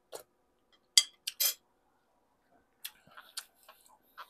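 Eating sounds: sharp mouth smacks and chewing clicks as stewed pork is eaten, a few loud ones in the first second and a half, then softer smacking near the end.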